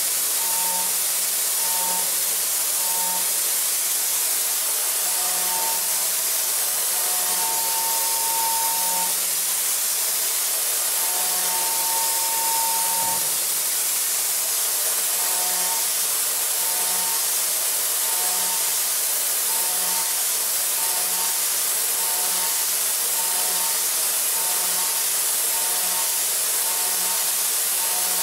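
DMG MORI CMX1100V vertical machining center high-speed milling a metal block with a Sandvik end mill in a hydraulic holder. There is a steady high hiss, and over it a cutting tone that keeps breaking off and coming back in short stretches as the cutter engages.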